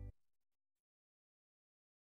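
End-credits music with guitar and drums stops abruptly just after the start, leaving a brief fading tail, then dead silence.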